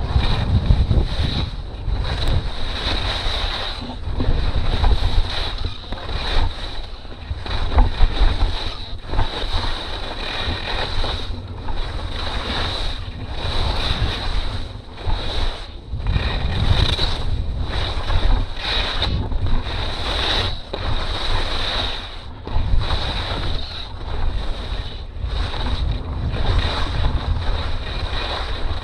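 Wind rushing over the microphone while skiing downhill, with skis scraping across hard-packed snow in repeated swells about once a second as the turns are linked.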